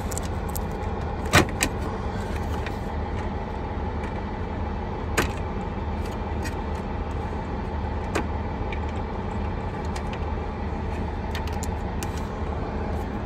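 Steady low rumble of an idling diesel engine, with a few sharp plastic clicks as dash trim around the steering column is worked loose by hand, the loudest about a second and a half in.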